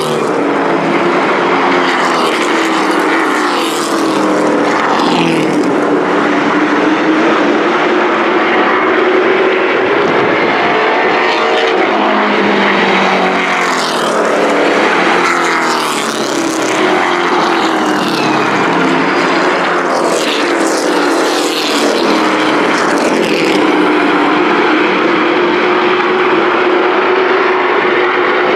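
Engines of a pack of Thunder Truck race trucks running around the oval, several engine tones rising and falling together as they accelerate and lift. A few times, the pack passes closer and gets louder with a rising-then-falling sweep.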